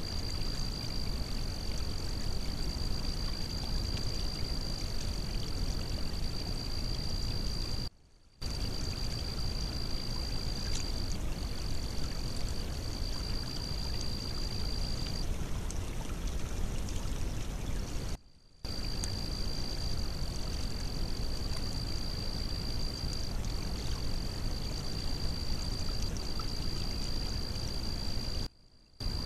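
Water running and trickling through a breached beaver dam, picked up by a trail camera's noisy microphone, with a steady high-pitched whine over it. The sound cuts out briefly three times, where one recording ends and the next begins.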